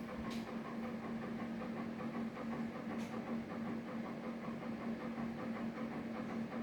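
Steady low mechanical hum with a faint regular pulsing, broken by two faint ticks about a third of a second in and about three seconds in. No heavy bang is heard.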